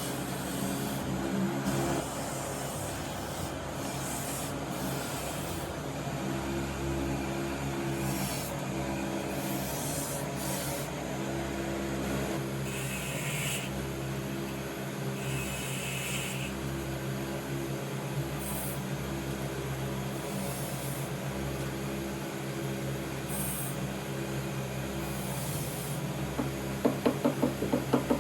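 Wood being scraped by a tool, a continuous rasping, over a steady machine hum. A quick run of sharp knocks near the end.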